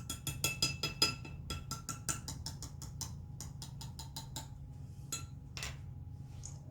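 A spoon stirring borax into hot water in a bowl, clinking and ringing against the bowl about four or five times a second, then slowing to a few scattered clinks after about four seconds.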